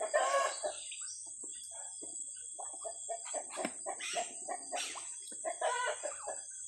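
Chickens clucking in short scattered calls, over a steady high-pitched whine.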